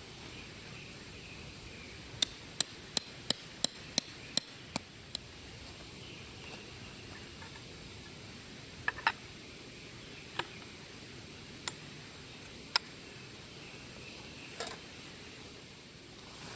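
A run of sharp knocks, about eight in quick succession at roughly three a second, then a handful of single knocks a second or two apart.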